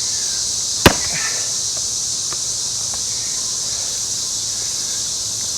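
A single sharp axe chop into a pine round about a second in, as the axe is driven in to split it, with a brief ring after the blow. Insects chirr steadily in the background.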